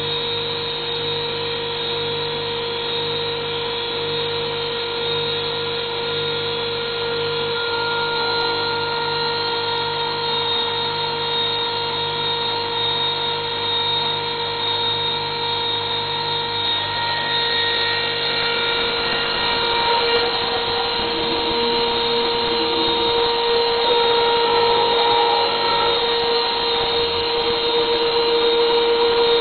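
Home-built CNC mill running an engraving job, its spindle motor giving a steady whine with several held tones. About two-thirds of the way through, the tones shift and the whine grows a little louder.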